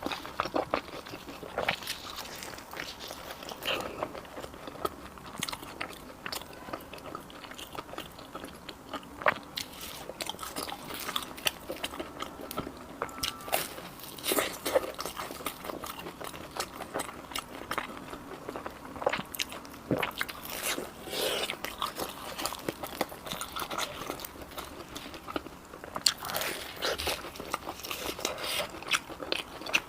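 Close-miked biting and chewing of crisp deep-fried dough cakes (zhagao): repeated irregular crunches and crackles of the fried crust.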